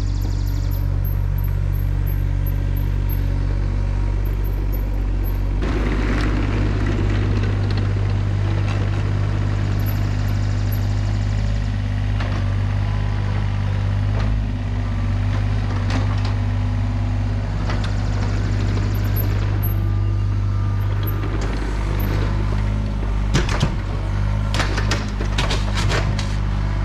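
John Deere 35G mini excavator's diesel engine running steadily under load as the machine tracks and works its arm. A run of sharp knocks comes near the end.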